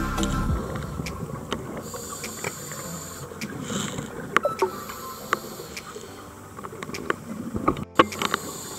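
Underwater sound picked up by a diver's camera: scuba regulator breathing, with a high hiss of inhalation about every three seconds, over a background of scattered sharp clicks and crackles.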